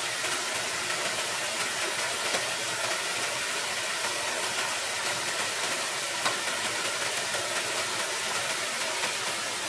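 Small stream cascading over rocks: a steady rush of running water, with a few light knocks of bamboo poles, the clearest about six seconds in.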